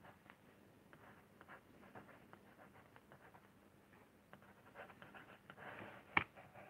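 Faint pen strokes scratching across a sheet of lino while sketching an outline, with a busier run of strokes and then a single sharp tap near the end.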